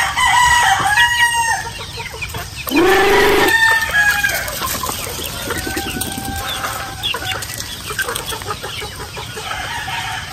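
A large free-range flock of chickens clucking and calling as they wait to be fed. A rooster crows loudly about three seconds in, and lighter clucks and calls continue after it.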